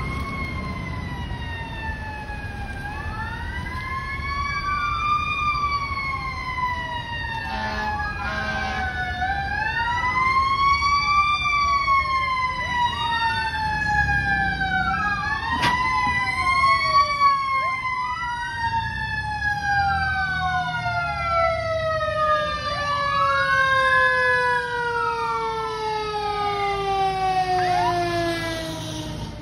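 Fire engine sirens sounding as the rescue engine approaches and passes: a siren wailing up and down every few seconds, overlapping faster sweeping siren tones. About eight seconds in there is a brief burst of horn. Through the second half, a siren tone falls steadily in pitch.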